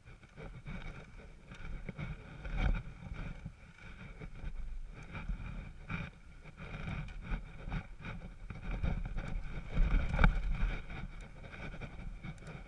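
Off-road motorcycle ridden down a rough dirt trail: a muffled engine with irregular jolts and rattles as the bike bounces over the bumpy ground, the heaviest jolts a little before 3 seconds in and again around 10 seconds.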